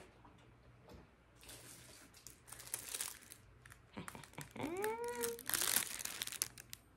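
Plastic crinkling and rustling as it is handled, in scattered bursts that grow loudest near the end. A woman's short wordless vocal sound, rising then held, comes about two-thirds of the way through.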